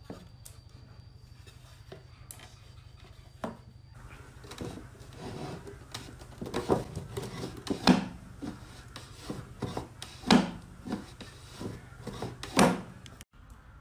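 Wooden drawer sliding in and out of a wooden box, wood rubbing on wood, with several sharp knocks as it reaches the end of its travel. The sliding begins about four seconds in.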